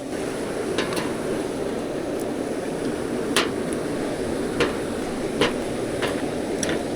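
Steady rush of flowing river water, with about seven sharp knocks and clicks scattered through it.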